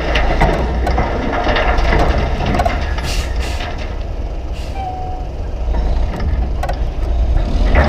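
A load of dirt and rocks sliding and clattering out of a tipped dump truck bed through the open tailgate, over the truck's diesel engine running steadily.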